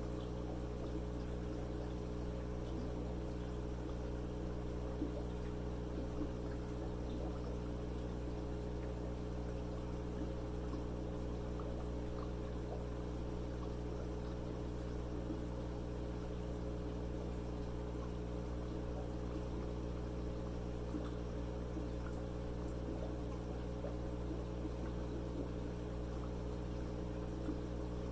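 Tetra Whisper 60 aquarium air pump running steadily with a low electric hum, both diaphragm outlets teed into one line. Its air bubbles and gurgles through water into a quart container during a flow-rate test.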